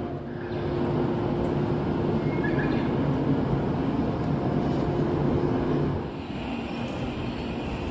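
Stationary Rokumon sightseeing train, a converted 115-series electric multiple unit, humming from its onboard equipment while it waits at the platform: a steady drone with low hum tones. About six seconds in the hum fades a little and a higher hiss takes over.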